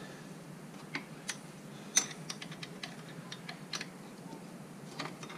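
A hex key being worked in the gear-lever clamp bolt of a Triumph Explorer XCA to loosen it. It makes faint, irregular sharp metal clicks and ticks, about a dozen, some in quick little clusters.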